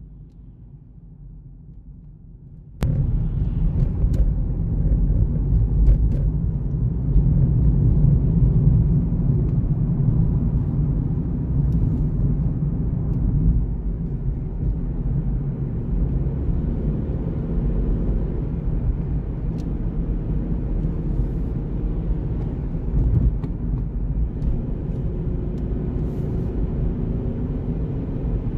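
Car driving on wet city streets: a steady low rumble of engine and tyre noise. It starts abruptly about three seconds in, after a faint low hum.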